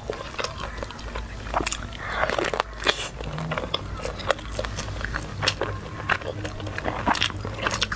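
Close-miked biting and chewing of a soft, sauce-dipped sausage: wet mouth clicks and smacks, scattered irregularly throughout.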